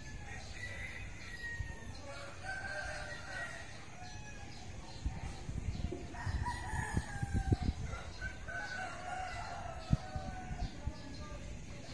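Roosters crowing several times, each call a drawn-out one lasting about a second, with a few low thumps in the second half.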